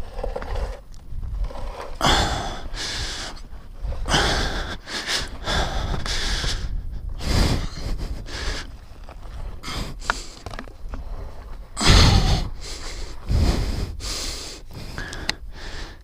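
A man breathing hard and gasping, with loud heavy breaths every second or two, from the strain of shifting a heavy stuck dirt bike by hand.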